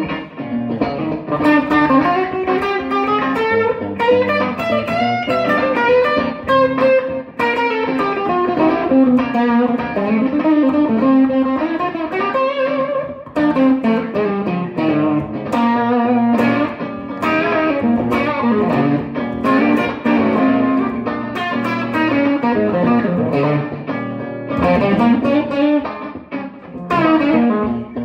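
Electric guitar playing a continuous stream of single-note blues lines, with quick runs of plucked notes rising and falling in pitch.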